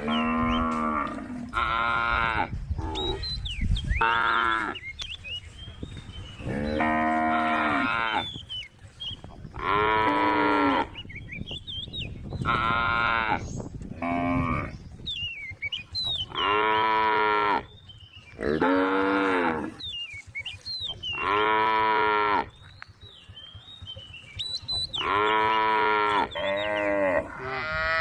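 A cow mooing over and over, about a dozen calls of a second or so each, every two to three seconds, a few of them shorter and closer together near the end.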